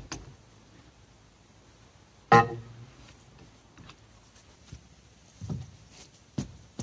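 A single loud metallic clang about two seconds in, ringing briefly, from a long steel socket wrench being worked on the wheel nuts of a steel van wheel. Several softer knocks and clunks of the tool being handled follow in the second half.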